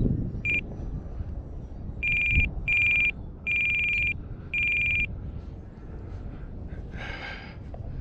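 Electronic alarm on the RC plane setup beeping a steady high tone: one short beep, then four longer beeps about half a second apart. It sets off when the throttle is pushed full with a charged battery, a cause the pilot has not yet found.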